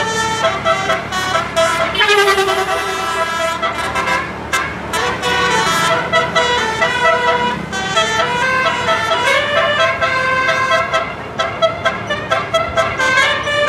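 Bus 'telolet' horn: a set of musical air horns playing a quick run of changing notes, tune after tune without a break.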